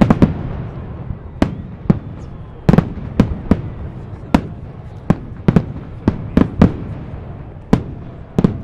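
Festive fireworks salute: aerial shells bursting in irregular succession, sharp bangs about two a second, over a continuous low rumble.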